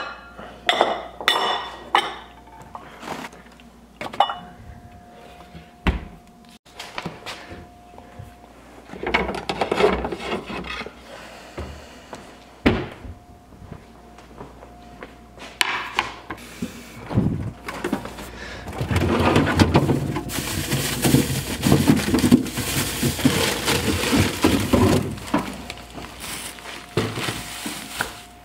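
Glass mixing bowls clinking and being set down on a stone countertop in the first few seconds, then scattered knocks of a wooden cutting board being handled. Near the end, plastic produce bags crinkle and rustle for several seconds as vegetables are pulled out.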